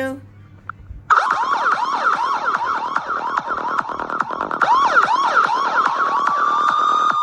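Electronic phone ringtone: a dense run of rapid chirping pitch sweeps, rising and falling and overlapping, that starts suddenly about a second in after a short pause.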